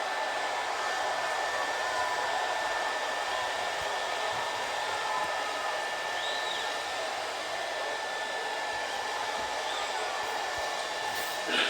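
Sustained applause from a large crowd, a dense, steady wash of clapping that holds an even level throughout, with a brief louder accent near the end.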